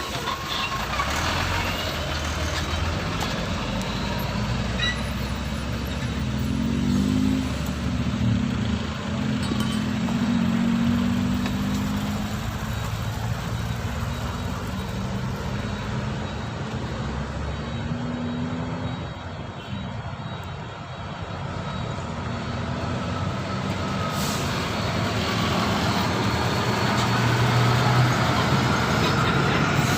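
Heavy truck engines labouring up a steep, slippery climb. One engine's note rises and holds for several seconds about a quarter of the way in, and another engine grows louder near the end.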